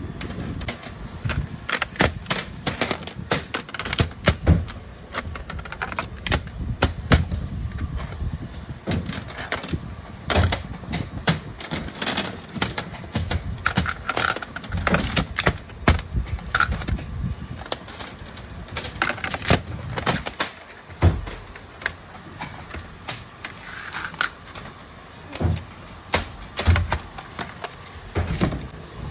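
Dense, irregular clicking and clattering from a nail-polish production line: many sharp knocks of small hard parts, with brief ringing tones now and then.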